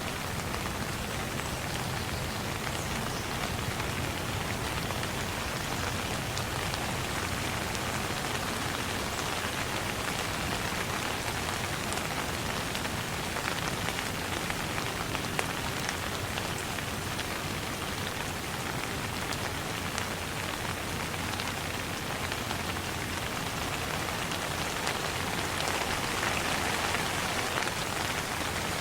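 Steady rain falling on a surface, an even hiss with many small drops pattering through it.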